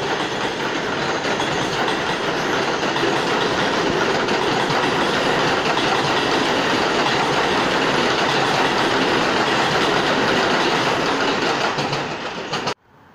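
Subway train running past on elevated tracks: a loud, steady rumble and clatter of wheels on rail that drops away suddenly near the end.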